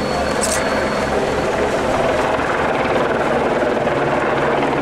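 Helicopter running overhead: a steady rushing noise with an even, low rotor beat several times a second.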